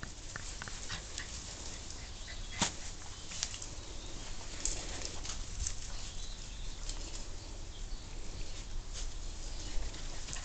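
German shorthaired pointer puppies scampering and tussling in long grass: a continuous rustling with scattered small ticks and taps, and one sharper tap about two and a half seconds in.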